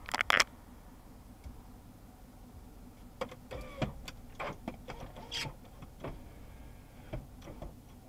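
Car horn honking in a few quick, sharp blasts right at the start, the loudest sound here; after it, scattered faint clicks and short squeaks.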